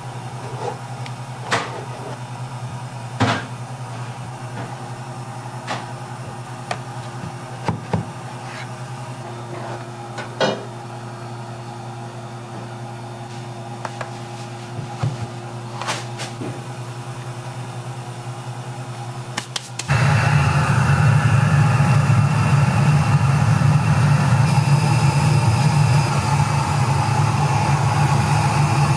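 Light metal clicks and knocks over a steady kitchen hum as a multi-bladed steel cutter is set into rice-cake flour in a steel tray. About twenty seconds in, a much louder steady rushing noise starts suddenly: the rice-cake steamer running.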